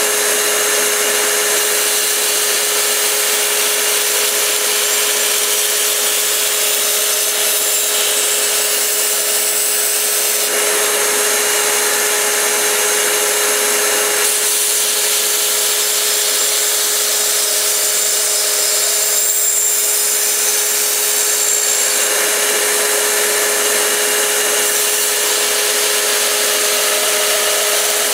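Belt grinder running with a steady whine while a large Bowie knife's edge is sharpened on a 500 grit slack belt, the steel hissing against the belt. The grinding changes every few seconds as the blade is worked back and forth along the belt, smoothing out the coarser 220 grit edge.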